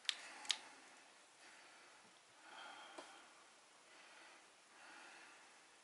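Two sharp clicks about half a second apart, from a small screwdriver and the drone being handled on a silicone work mat, followed by soft breathing and a faint click about three seconds in.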